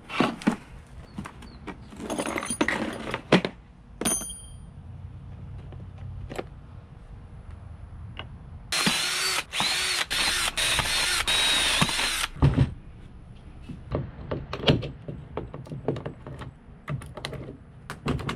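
Cordless drill running into a block of pine board, about nine seconds in, for roughly three and a half seconds with a few brief stops; it is the loudest sound. Scattered clicks, knocks and rattles of tools and boards being handled come before and after.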